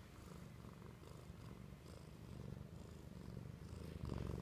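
Black Manx kitten purring steadily, a low, rapid rumble picked up at very close range, growing louder near the end.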